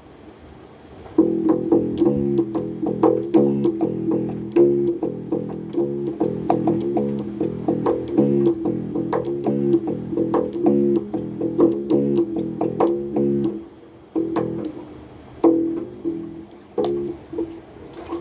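Bass guitar played solo: a fast, busy run of plucked notes that stops about three quarters of the way through, followed by a few separate notes.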